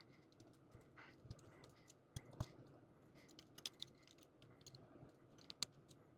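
Faint, irregular clicks and taps of small plastic model-kit parts being handled and fitted together.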